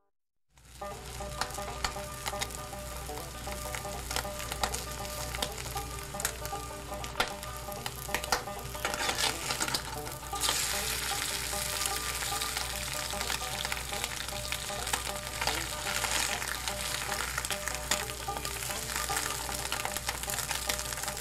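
Food frying in hot oil, a stock sound effect: a dense, steady sizzle and crackle that starts about half a second in and grows louder and brighter about ten seconds in, over a low steady hum.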